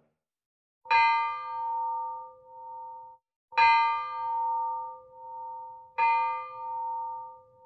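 A bell struck three times, about two and a half seconds apart. Each stroke rings on with a slow, pulsing waver as it dies away.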